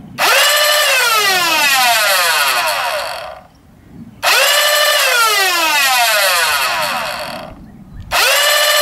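Flywheel blaster's MTB Neo-Rhino 130-size motors on a 3S LiPo, revving up very quickly to a high whine, then winding down in pitch for about three seconds as they coast to a stop. This happens twice, and a third rev-up starts near the end.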